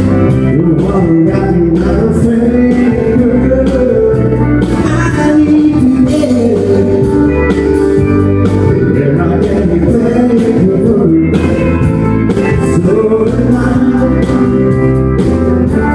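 Live country song: a man singing into a microphone while strumming a steel-string acoustic guitar, with a bass line and a steady beat underneath.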